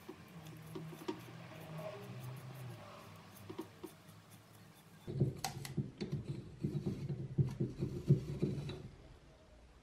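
Toothbrush bristles scrubbing the jaws and slide of an old adjustable wrench, a soft scratching. About five seconds in, masking tape is pulled off the roll and wound around the wrench handle, a quick run of crackles that stops just before the end.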